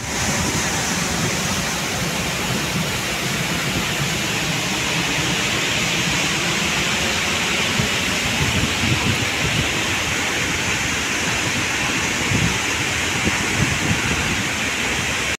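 Waterfall: a 19-metre fall of river water rushing steadily, with no change through the stretch.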